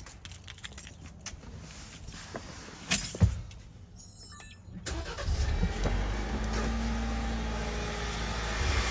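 Jeep engine cranked and started about five seconds in, then idling steadily. Before it, a few light clicks and one sharp thump about three seconds in.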